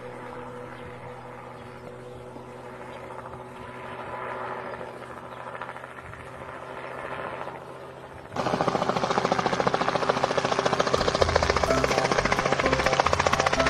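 Small open-frame single-seat helicopter in flight: faint and distant at first, then, about eight seconds in, suddenly loud and close, its rotor and engine beating in a rapid, even pulse.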